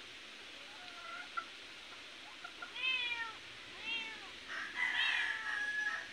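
Domestic cat meowing three times: two short meows about three and four seconds in, then a longer, drawn-out meow near the end.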